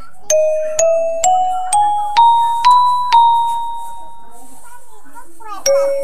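Railway station arrival chime over the platform loudspeakers: a melody of bell-like struck notes about half a second apart. It climbs step by step over the first three seconds, the last note rings on, and a new phrase starts near the end.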